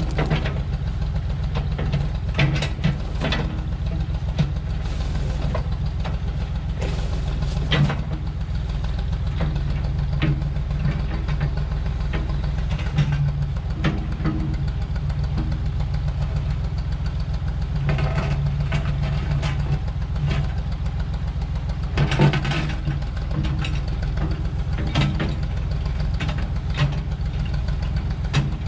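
Massey Ferguson backhoe's engine running steadily while working, with scattered sharp cracks and clanks over the top.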